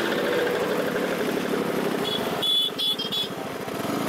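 A line of scooters, Vespas and Lambrettas, riding slowly past one after another, their small engines running at low speed. About halfway through, several short high-pitched tones sound over the engines.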